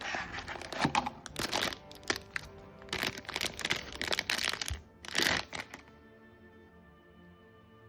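Packaging being handled and torn open in irregular bursts of crinkling and crackling, over background music. The handling stops about six seconds in, leaving only the music.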